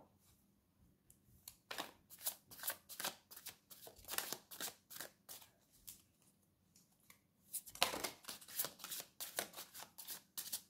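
Tarot cards being shuffled and handled: quick runs of short card flicks and slaps, with a pause of about two seconds just past the middle.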